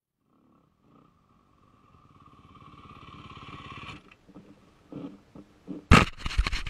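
Nearly silent at first, then a dirt bike engine running at low revs grows steadily louder and cuts off suddenly about two-thirds of the way in. A few knocks follow, then loud rough clattering near the end.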